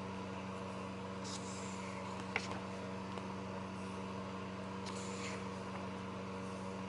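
Pages of a printed booklet being turned by hand: two soft paper swishes and a light tap, over a steady low hum.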